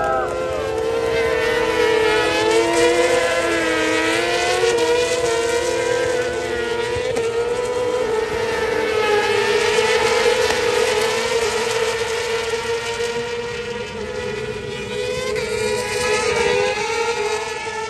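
A pack of racing motorcycles at high revs through a bend: many engine notes overlap, wavering up and down as the bikes shift and pass.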